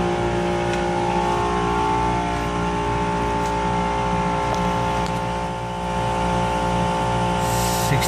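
Trane chiller running with its compressor on: a loud, steady machinery drone made up of several fixed tones.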